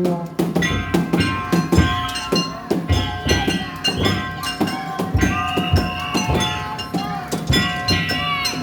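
Daijayama festival float music: taiko drums struck in a fast, even beat, several strikes a second, with metal bells ringing steadily over them.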